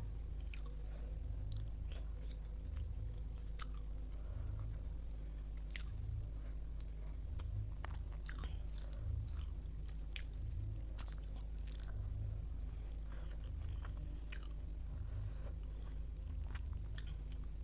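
A person chewing mouthfuls of rice and curry close to the microphone, in a steady rhythm of about one chew a second, with small wet clicks and light crunches.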